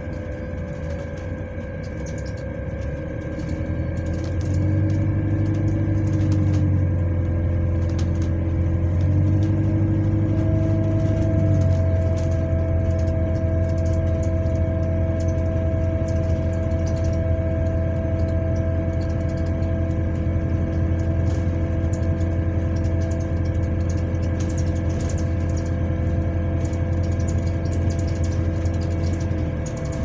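Bus interior with a steady, multi-tone whine from a fan, the weird fan noise, and a second, higher whine joining about ten seconds in. Under it the bus's engine drones low, swelling about four seconds in and dropping away just before the end.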